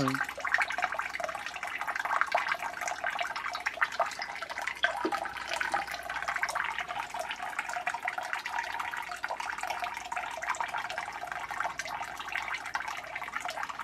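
Water jetting from a ball valve (float valve) into a cold water storage tank, a steady splashing and hissing as the tank refills with the valve still open.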